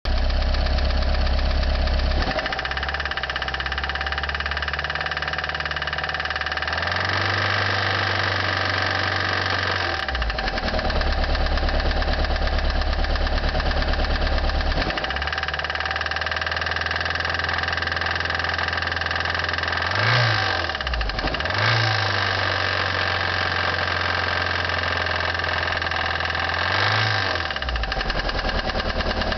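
1989 Toyota Corolla's 1.6-litre four-cylinder engine running with a rod knock, the sign of a worn connecting-rod bearing after 255,000 miles of hard use. It holds several steady speeds, with three short revs in the last third.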